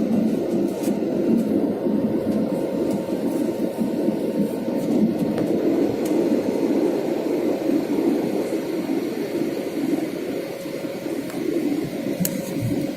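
Steady aircraft cabin noise in flight: a low drone of engines and airflow, with a faint steady hum running through it.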